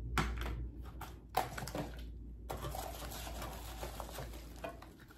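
Packaging being handled: a few small knocks and clicks as things are put down and picked up, then a continuous rustle and crinkle from about halfway through.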